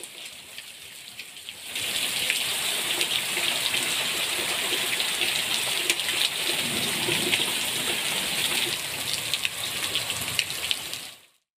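Heavy rain falling on ground and roofs, a steady hiss with small patters of drops. It is fainter at first and grows louder about two seconds in, then cuts off abruptly just before the end.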